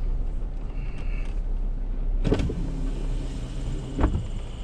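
Vehicle driving slowly, with a steady low rumble and two sharp knocks about two and four seconds in.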